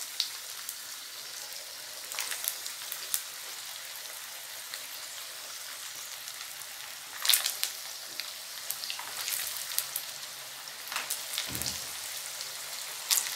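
Potato-and-semolina dough rings deep-frying in hot oil: a steady sizzling hiss scattered with sharp crackles, as more rings go into the pan. Louder crackling bursts come about seven seconds in and again near the end.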